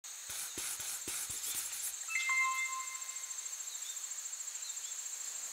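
Field insects trilling in a steady, high, finely pulsing chorus. There are a few faint clicks in the first two seconds, and a single held whistle-like call sounds about two seconds in.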